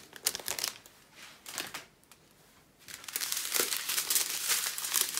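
Small plastic packets of round diamond-painting drills crinkling as they are handled and sorted. Crackling near the start, a quiet pause of about a second in the middle, then steady crinkling from about three seconds in.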